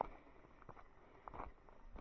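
Footsteps of a person walking on a path, three steps about two-thirds of a second apart.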